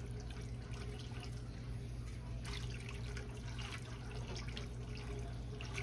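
Red silicone whisk stirring milk gravy in a skillet, with wet sloshing and bubbling as the gravy comes up to a boil and starts to thicken.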